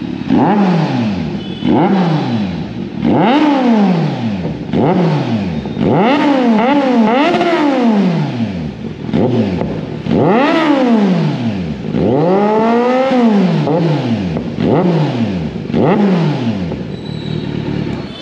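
2023 Kawasaki Z900's 948 cc inline-four engine, fitted with an aftermarket SC Project exhaust, revved at standstill in a series of throttle blips, each rising and falling back. A few revs near the middle are held longer and higher.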